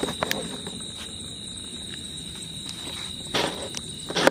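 Small Cock Brand skyrocket lifting off with a short rushing whoosh about three and a half seconds in, followed by a sharp crack just before the end. Crickets trill steadily in the background throughout.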